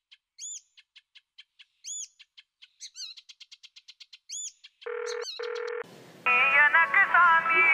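Small birds chirping, with a quick trill in the middle. Two short electronic beeps follow, and then a mobile phone starts ringing with a song as its ringtone.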